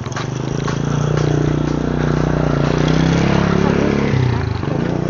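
A motorcycle passes close by, its engine getting louder and its note falling as it goes past.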